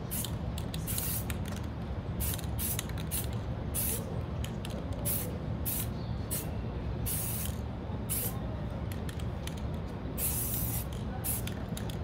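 Aerosol spray-paint can hissing in a quick string of short bursts, a few held longer, as red paint is sprayed onto the wall to write letters. A steady low rumble lies underneath.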